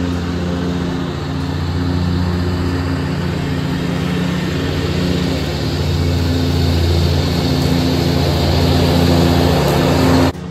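Scag Turf Tiger zero-turn mower's Caterpillar diesel engine running steadily as it mows, growing louder as the mower drives closer, then cutting off suddenly near the end.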